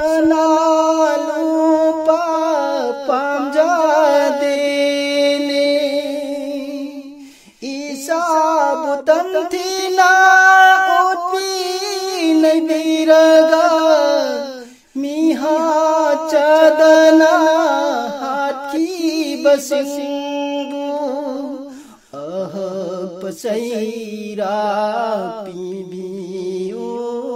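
A man singing a naat unaccompanied, holding long, ornamented notes with brief breaks for breath. About 22 seconds in, the melody drops to a lower pitch.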